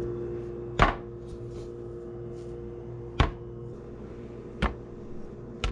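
Four sharp knocks over a steady hum as raw canned biscuit dough rounds are separated and laid out on a metal baking sheet.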